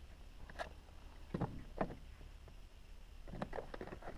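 Cardboard product box being handled and set down on a wooden tabletop: a few light knocks and scrapes, with a quick cluster of them near the end.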